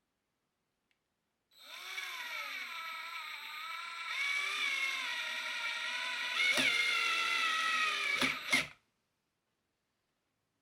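Black+Decker 20V MAX cordless drill running as it drives a screw, its motor whine wavering in pitch as the load changes. A few sharp clicks come near the end before the motor stops abruptly.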